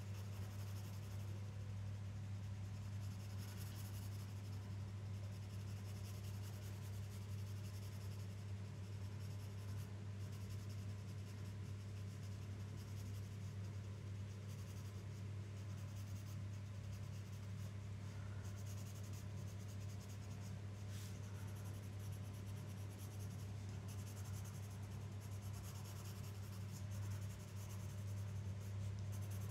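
Graphite pencil scratching on paper in short shading strokes, over a steady low hum.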